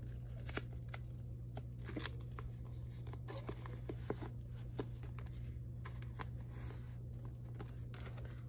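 Faint rustling and scattered small clicks of photocards and plastic binder sleeves being handled as cards are slid into a binder's pocket pages, over a steady low hum.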